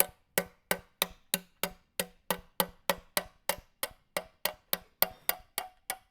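Steady, evenly spaced ticking, about three ticks a second, each tick short and ringing briefly.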